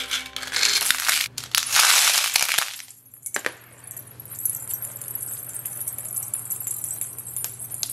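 Small hard candy balls poured from a glass jar, rattling and clinking onto a tub full of candy; the pouring stops abruptly about three seconds in. After that, faint light clinks and jingles from the doll's metal anklets and bracelets as it is lifted out, over a low hum.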